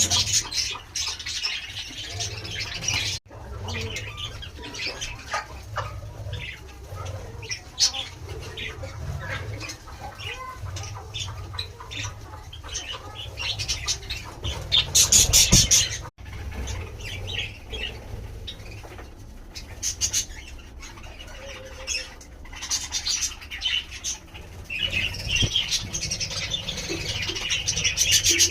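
Pet budgerigars chattering and chirping, with busier bursts near the start, about halfway through and near the end, over a low steady hum.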